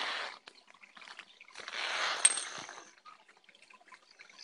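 Water running down an overgrown gully, heard through a phone's microphone: dark runoff leaking from the landfill's drainage ditch. The rushing noise swells at the start and again around the middle, and there is one sharp click about two seconds in.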